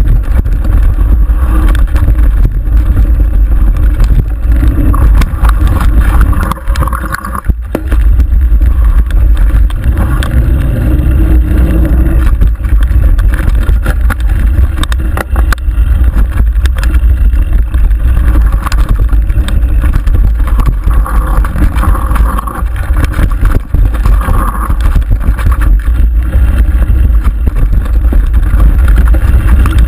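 A mountain bike descending rocky dirt singletrack: steady wind rumble on the camera microphone, with constant rattles and knocks from the bike and tyres over the rough trail.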